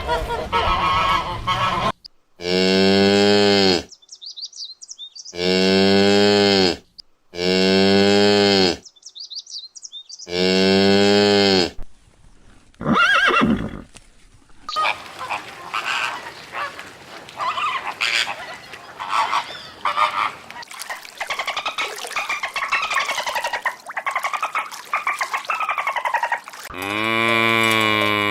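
Cow mooing: four long, low moos of about a second and a half each, then a busier stretch of higher-pitched calls, and one more moo near the end.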